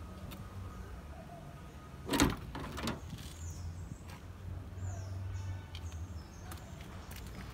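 Car door being unlatched and swung open: a sharp clunk about two seconds in, followed by a softer knock.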